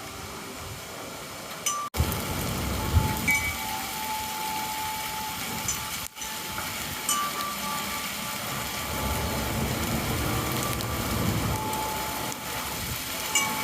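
Wind chimes ringing now and then in gusty wind ahead of a storm, over a steady rush of wind with low rumbling swells a couple of seconds in and again past the middle.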